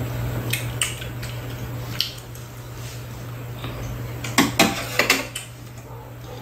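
Metal spoons and chopsticks clinking and tapping against bowls at a meal: a scatter of short light clicks, the loudest few coming together about four and a half to five seconds in.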